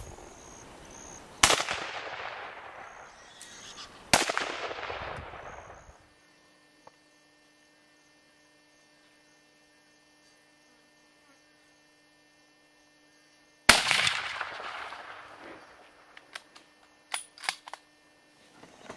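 Three gunshots: two about three seconds apart, then a long lull and a third, each a sharp crack that echoes away over a second or two. A few faint clicks follow near the end.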